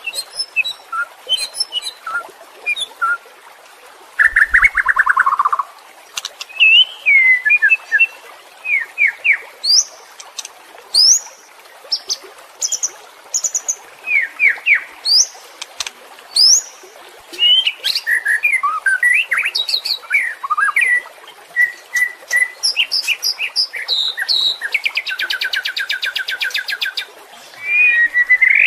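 White-rumped shama (murai batu) singing: a varied run of short whistled notes and quick rising slurs, with a falling trill about four seconds in and a harsh, rapid rattle near the end.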